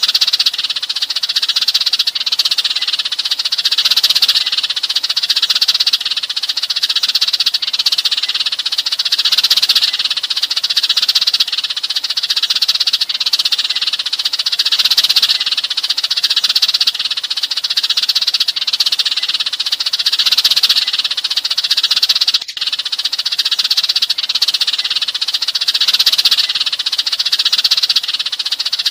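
A flock of sparrows chirping in a dense, continuous chatter that swells and fades every second or two: a sparrow flock call, the kind played to draw other sparrows in. A brief click and dip in the chatter about two-thirds of the way through.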